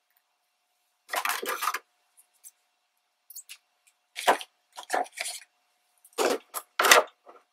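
Twine drawn out and cut with scissors: a short rustle about a second in, then a string of brief snips and clicks of scissors and handling on the craft table.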